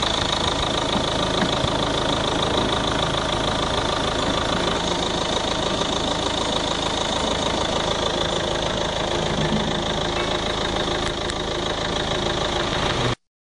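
Ford Focus 2.0 TDCi diesel engine idling steadily, then cutting off abruptly near the end.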